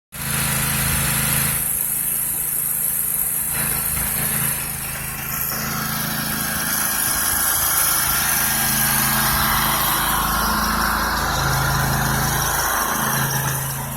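Petrol-engine pressure washer running steadily, with the continuous hiss of high-pressure water spraying onto concrete sidewalk.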